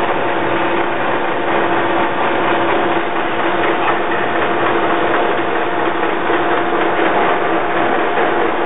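MEGA TR-30T hydraulic thread rolling machine running, its grooved rolling dies turning as they roll a thread onto a long steel bar: steady mechanical noise with a constant hum.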